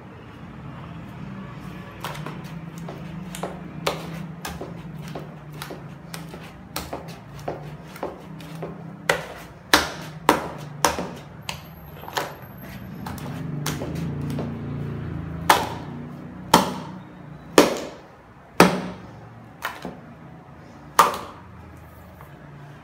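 A wooden stick knocking against the sides of a plastic bucket as thick cake batter is stirred by hand: irregular sharp knocks, louder from about ten seconds in, over a steady low hum.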